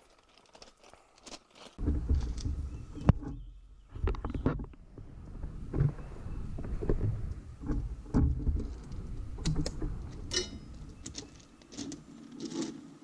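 Handling noise as a piece of fiberglass cloth is trimmed to size: irregular rustling and low knocks with scattered sharp clicks, starting a couple of seconds in.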